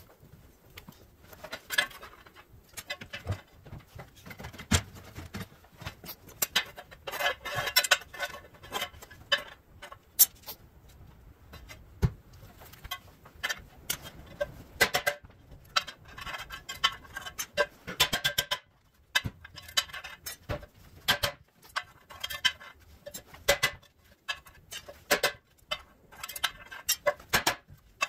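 A hammer knocking on the edges of a rusty sheet-steel panel piece: irregular sharp metallic knocks, some hard with a short ring, others light taps.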